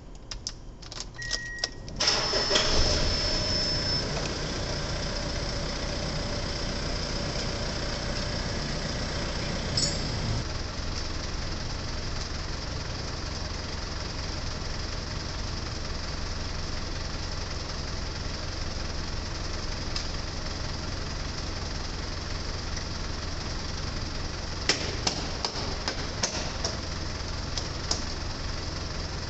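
Mitsubishi Fuso Canter Guts truck engine being started with the key: a short beep and clicks, then the engine catches about two seconds in and settles into a steady idle. It is run after a radiator replacement to check the coolant level. A few sharp clicks come near the end.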